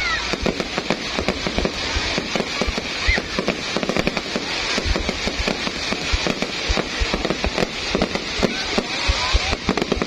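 Fireworks going off in a dense, continuous barrage of overlapping bangs and crackles, with a couple of short high whistles.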